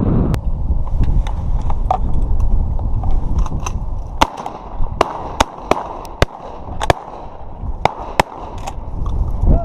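Wind rumbling on the microphone, with many short, sharp cracks at irregular intervals of about half a second. A brief falling tone comes near the end.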